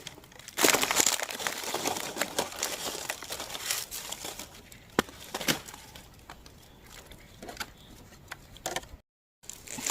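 Dry leaf litter rustling and crunching in irregular bursts, with a few sharp snaps of twigs, as a hand works through the forest floor to reach the mushrooms. The noise is loudest about a second in and drops out completely for a moment near the end.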